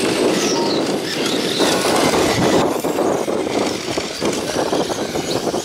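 1/8-scale brushless electric on-road RC cars racing past on asphalt: a steady rush of tyre and drivetrain noise, with faint high whines that glide in pitch.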